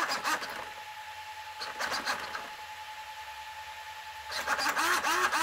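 Traxxas X-Maxx steering servo, fed 6 volts, whirring in quick sweeps that rise and fall in pitch about twice a second as the front wheels are steered back and forth. It comes in three spells: at the start, briefly about two seconds in, and again from a little after four seconds. A faint steady tone sounds in the pauses.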